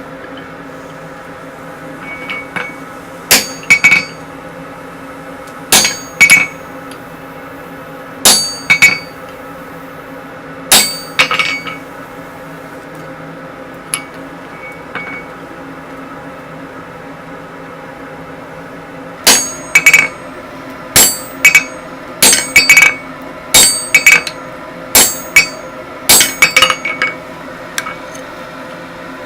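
Hammer blows on red-hot mild steel bar on an anvil, each strike ringing sharply. The first half holds pairs of blows every couple of seconds. After a pause, a quicker run of strikes follows, about two a second, over a steady background hum.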